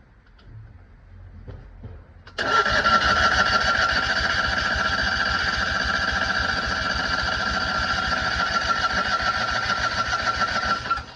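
Citroën 2CV's flat-twin engine being cranked on its electric starter: a steady starter whine over an even chugging rhythm, starting about two seconds in and stopping abruptly after about eight seconds. The engine does not catch; the owners suspect the carburettor and a lack of spark.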